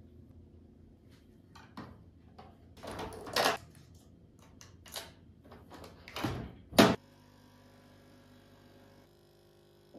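Plastic clicks and knocks as a coffee capsule is taken from a rack and loaded into a capsule coffee machine, the loudest a sharp clack about seven seconds in as the machine is shut. Then the machine's pump hums steadily while it brews coffee into the glass, its tone dropping slightly about two seconds later.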